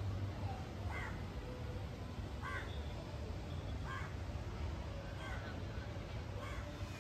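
A crow cawing repeatedly, one short call about every second and a half.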